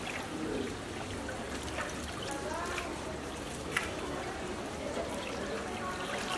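Water trickling steadily under faint background voices, with one sharp click a little before the four-second mark.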